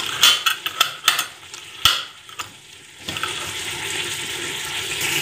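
Metal twist-off lid screwed down onto a glass jar of hot sauce: a run of sharp clicks and scrapes of the lid turning on the glass thread. About three seconds in, a steady hiss starts.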